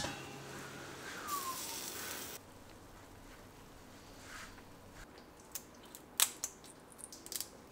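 Stainless steel steamer lid lifted off with a clink and steam hissing out for a couple of seconds. Then steamed crawfish shells cracked and peeled by hand, with a few sharp snaps near the end.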